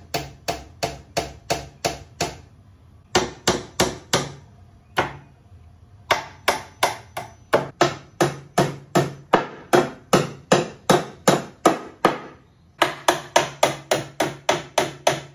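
A hammer striking nails to drive them through the wood of a cabinet and free them. The blows come sharp and steady at about three a second, in runs broken by three short pauses.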